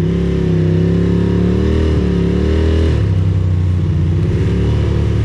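Ducati Monster's V-twin engine pulling away with the pitch rising, then changing gear about three seconds in and running on steadily, with wind and tyre hiss on the wet road beneath.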